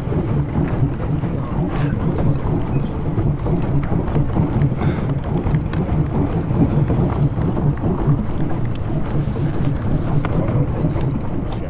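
Steady wind rumble on an action camera's microphone, mixed with water churning around a moving paddle boat, with a few light ticks.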